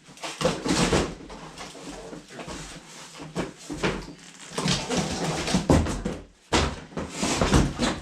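Cardboard bike-box packaging being handled and pulled open: irregular rustling, scraping and crinkling with a few sharper knocks.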